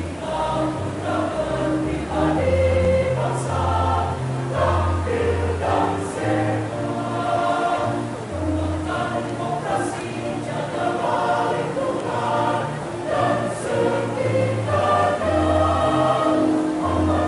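A choir singing in parts, with a line of held low notes changing pitch underneath the voices.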